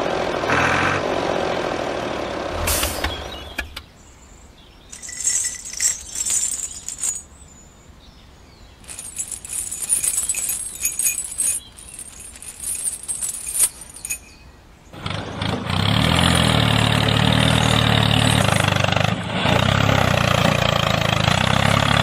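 Small engine of a DIY mini tractor running, then stopping after about three seconds with a knock. A quieter stretch of faint scattered hisses and clicks follows. At about fifteen seconds in the engine starts again and runs steadily.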